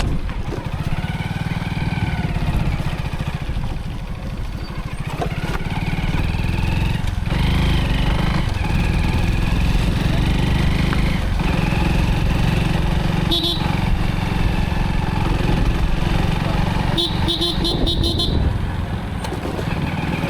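Motorcycle engine running while riding, with a steady low rumble and wind on the microphone. A vehicle horn beeps once about two-thirds of the way in, then several quick beeps a few seconds later.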